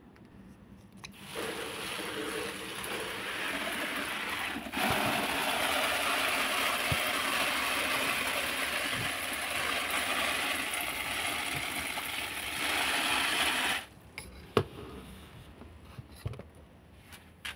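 Water pouring from a plastic watering can onto leaves and potted soil, a steady splashing rush that grows fuller about five seconds in and stops abruptly near the end, followed by a sharp click.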